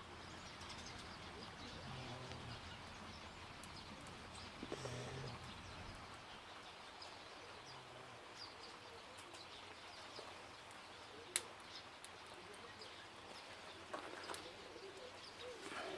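Wood-and-charcoal grill fire crackling faintly over a steady hiss, with scattered sharp pops, the loudest about eleven seconds in. A few low cooing calls sound in the first half.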